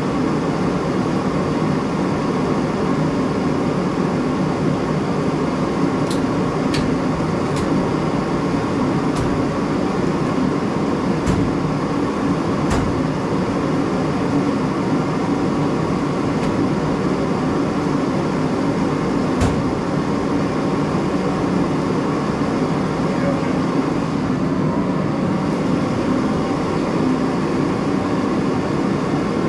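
A steady, loud mechanical roar of a running machine such as a blower or heater, unchanging throughout. A handful of sharp clicks stand out over it in the first two-thirds.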